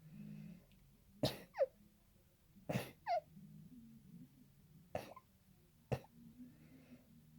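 A run of short, sharp sneezes, about one every second or so, two of them followed at once by a quick squeak that falls in pitch; allergy sneezing.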